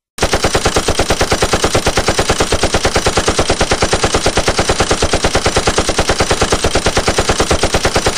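Loud digital glitch stutter: one tiny fragment of audio repeated rapidly, about ten times a second, with a buzzing, machine-gun-like rhythm. It starts abruptly.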